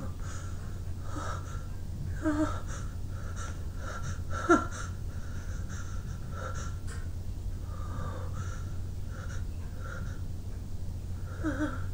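A person's repeated sharp, hitching breaths and short gasps while trying to sneeze, the nose tickled but the sneeze not coming. There are brief voiced catches about two seconds in and about four and a half seconds in, the second one the loudest.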